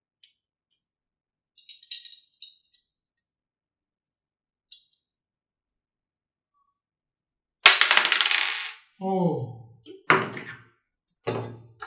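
Light clinks of small metal screws and fittings, then, past the middle, a loud clatter and a few sharp knocks as the parts of a swivel chair's five-star base are handled during assembly.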